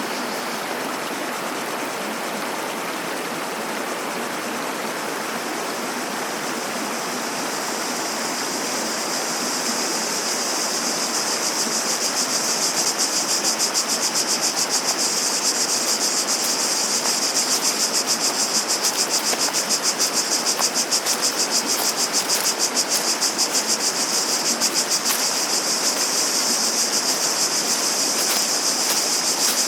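Cicadas buzzing over the steady rush of running water. The cicada chorus swells in about a third of the way through into a loud, fast-pulsing high drone.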